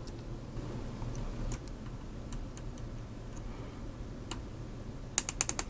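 Small sharp clicks and ticks from fiddling tiny Allen head screws and an Allen key into a RAM water block, scattered at first, then a quick run of about six clicks near the end, over a low steady hum.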